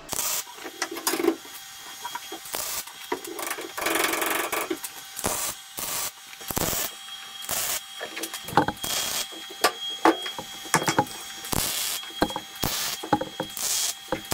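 A welder laying a series of short tack welds on steel suspension mounting tabs, crackling bursts of uneven length with short gaps between, over a faint steady hum.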